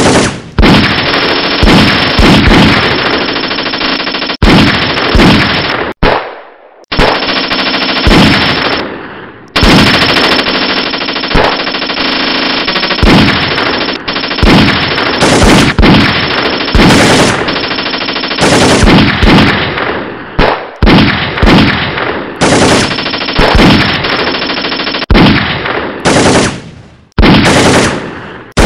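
Automatic gunfire: long, loud bursts of rapid shots, nearly continuous, with a brief break about six seconds in and another near the end.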